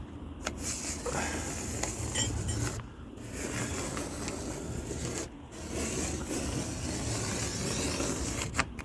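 Pencil scratching along a wooden board as a line is drawn, a steady scraping broken by two short pauses.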